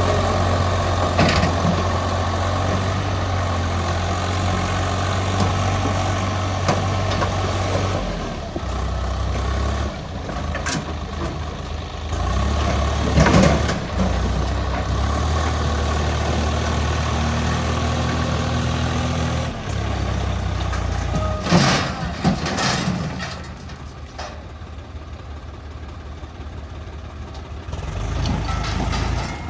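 Heavy diesel engine running at a steady low speed, its note shifting several times. There are a few sharp metallic knocks, the loudest about 13 seconds in and another about 22 seconds in.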